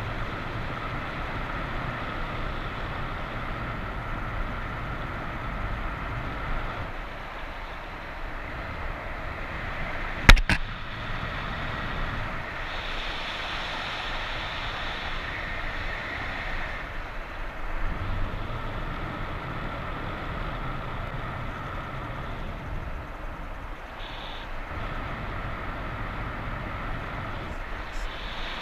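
Steady wind rush buffeting the microphone in flight, with a single sharp click about ten seconds in.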